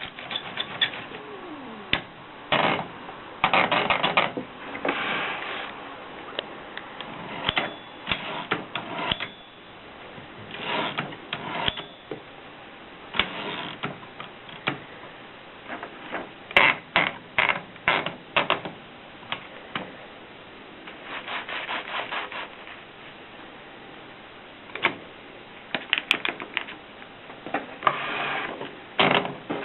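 Antique Adler typewriter being worked by hand: irregular clacks and short rubbing, scraping mechanical noises, some in quick runs, with pauses between.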